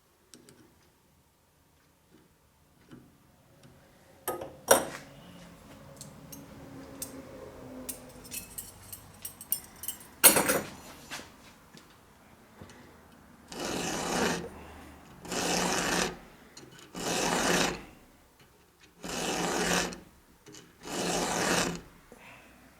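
Chainsaw chain being hand-filed: five slow rasping file strokes across the cutters, about two seconds apart, in the second half. Before them come a few sharp knocks and clicks, the loudest about halfway through.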